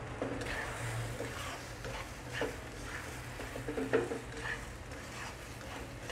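A plastic slotted spatula scraping and stirring sausages and onions in a nonstick wok, with the food sizzling in its sauce. The strokes come irregularly, a louder scrape about four seconds in, over a steady low hum.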